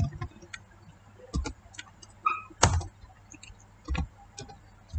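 Computer keyboard keystrokes and mouse clicks, single taps spaced irregularly, with the strongest click a little past halfway.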